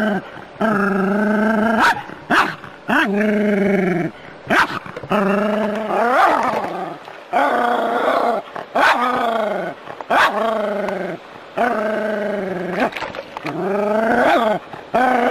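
A small terrier barking over and over at a snake, in long, drawn-out barks about one every second or so, with a few shorter ones between.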